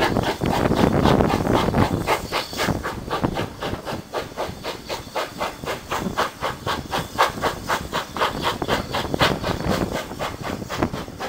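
GWR 0-6-0 pannier tank locomotive working a train, heard from a carriage window: steam exhaust beats and hiss in a quick, even rhythm over the running of the train. It is louder, with more low rumble, for the first couple of seconds.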